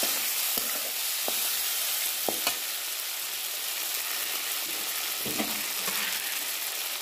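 Tomato pieces and bay leaves sizzling in hot oil in a metal kadhai, a steady hiss, while a metal spatula stirs them, scraping and knocking against the pan several times in the first few seconds.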